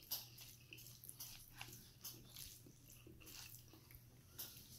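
A person quietly chewing spicy instant noodles: soft, wet mouth clicks and smacks, many in quick succession, over a faint steady low hum.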